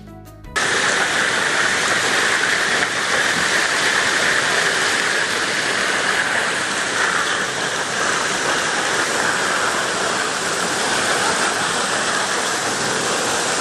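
Steady rushing and splashing of water, cutting in abruptly about half a second in.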